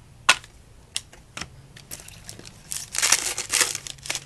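Trading cards being handled and flipped through by hand: a few sharp clicks of card on card, then a denser rustle lasting about a second near the end.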